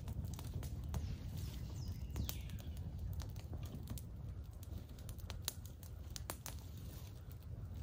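Small campfire of dead pine limbs crackling, with sharp irregular pops and snaps throughout. A faint bird call glides down about two seconds in.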